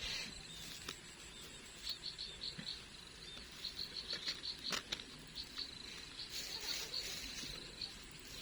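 Insects chirping faintly in short trains of rapid high-pitched pulses that come and go, with a couple of faint knocks.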